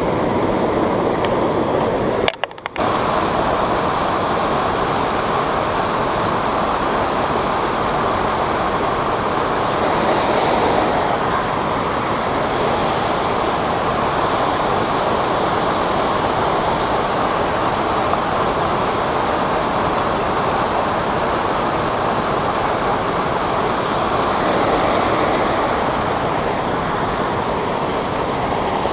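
Steady rush of a fast-flowing creek tumbling over rocks and a small riffle, loud and close, cutting out briefly about two and a half seconds in.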